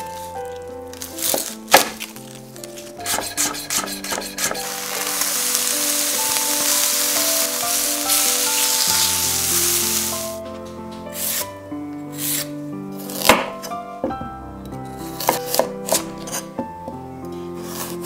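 Background music with knife strokes on a wooden cutting board as shallots are sliced. From about four seconds in, shallots and butter sizzle in a frying pan for about five seconds. Then come more knife strokes as a carrot is sliced on the board.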